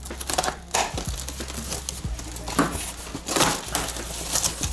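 Packaging being unwrapped by hand: irregular crinkling and rustling with short tearing sounds as a box is opened.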